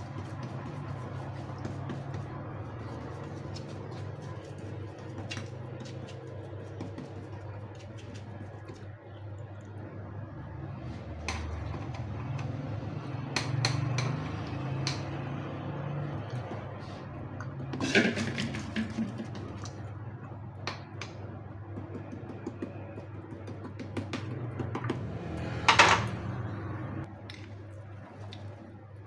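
Kitchen handling sounds of a knife and wooden rolling pin working a sweet mixture on a plastic-wrapped marble board: small clicks and scrapes, with two louder clatters, one about two-thirds of the way in and one near the end. A steady low hum runs underneath.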